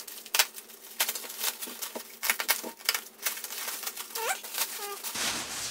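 Bubble-wrap packaging crinkling and crackling in irregular clicks as it is torn open and pulled off a bench part by hand, with a short rising squeak about four seconds in.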